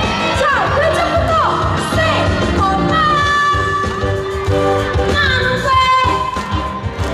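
A woman singing a Korean pop song live into a handheld microphone, her voice gliding and held over a backing track with a steady bass beat, all amplified through stage PA speakers.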